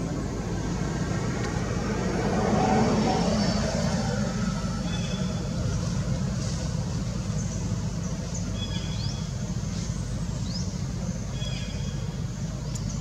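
Steady road-traffic rumble, swelling as a vehicle passes about three seconds in. From about five seconds on, short high chirps repeat every second or two.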